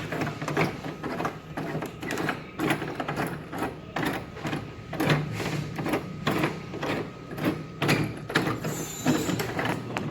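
Footsteps walking, about two steps a second, over a steady low hum.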